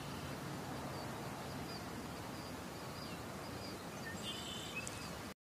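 Steady outdoor ambient hiss with faint, brief bird chirps scattered through it and a small cluster of higher chirps about four seconds in. The sound cuts off suddenly just before the end.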